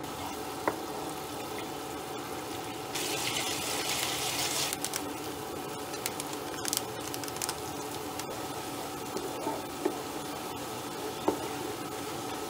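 Garlic, oil and a dark sauce sizzling and bubbling in a nonstick frying pan, with a louder stretch of sizzling about three seconds in that lasts a couple of seconds. A wooden spoon stirs and taps against the pan a few times.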